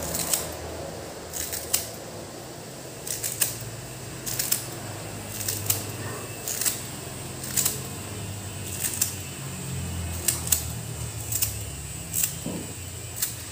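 Scissors snipping through pandan leaves, a short crisp cut about once a second, sometimes two close together.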